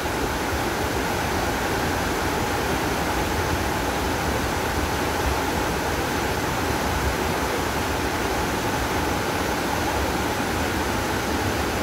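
Nyahururu Falls, a large waterfall, heard close up: a steady, unbroken rush of falling water.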